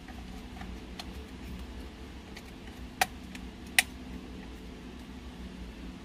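Light clicks and taps of hand tools and small metal parts as the mounting brackets are swapped between car head units, with two sharper clicks about three and four seconds in, over a low steady hum.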